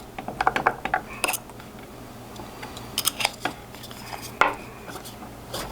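Scattered sharp metallic clicks and clinks of a small steel shaft and snap ring being handled and pushed into a 3D-printed assembly jig, with a cluster near the start and a few single knocks later.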